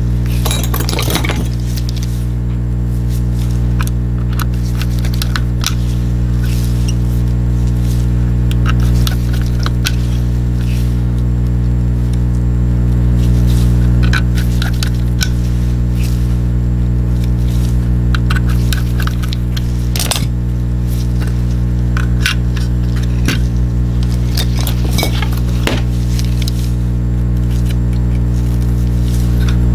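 A steady electrical hum, with scattered small clicks and taps of plastic mouse parts and tiny metal screws being handled and screwed in with a small screwdriver while a Logitech G Pro mouse is put back together.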